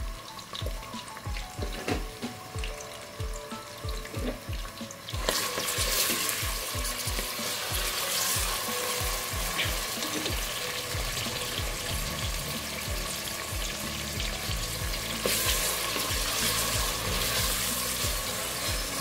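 Onion, garlic, ginger and tomato sizzling as they fry in oil in a pressure cooker, the masala base being softened; the sizzle grows louder about five seconds in, and a ladle stirs through the pieces.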